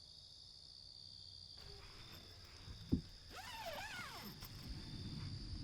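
Crickets chirring steadily in the background. About three seconds in there is a single dull thump, followed by a short wavering call that rises and falls in pitch.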